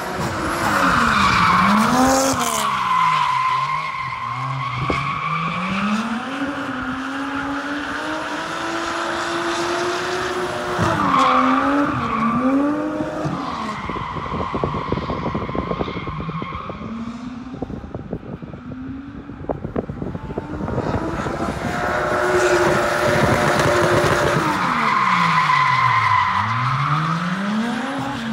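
Mazda RX-7 with a swapped Toyota 1JZ-VVTi straight-six engine drifting: the engine revs up and down over and over as the throttle is worked through the slides, while the rear tyres squeal. The squeal is loudest about two seconds in, again around the middle, and near the end.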